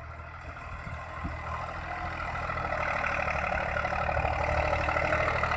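Massey Ferguson 260 tractor's diesel engine working under load as its front blade pushes sand, a steady engine note that grows gradually louder.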